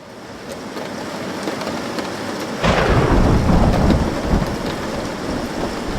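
Steady rain that fades in, with a loud thunderclap about two and a half seconds in that rumbles on for a couple of seconds before the rain carries on alone.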